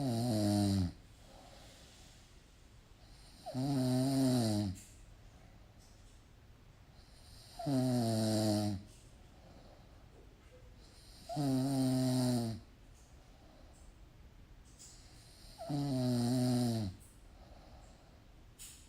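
Slow, regular snoring: five loud snores about four seconds apart, each lasting about a second and falling in pitch, with quiet gaps between.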